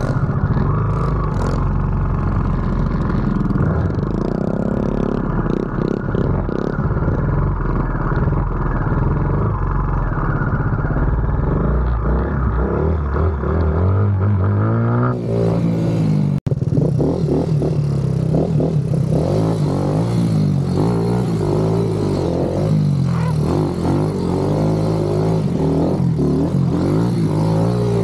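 Motorcycle engine running on the move, its pitch rising and falling with the throttle. There is an abrupt break about 16 seconds in, after which a high hiss is added.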